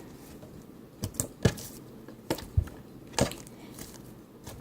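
Slime being stretched and pressed by hand, giving about six short, sharp pops and clicks as air pockets burst.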